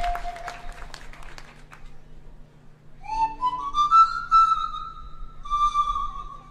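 Applause dies away in the first couple of seconds; about three seconds in, a pan flute begins a solo, sliding upward into a long held note and then a second held note.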